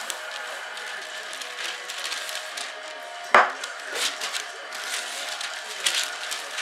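Parchment paper rustling and crinkling as large sheets are lifted and folded by hand, with one sharp knock a little past halfway.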